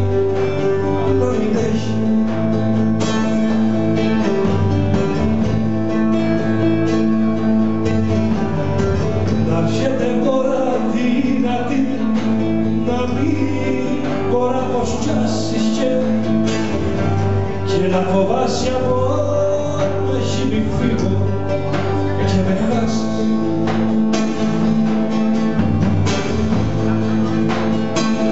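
A Cretan folk song performed live: a man sings to his own bowl-backed lute, accompanied by a strummed acoustic guitar.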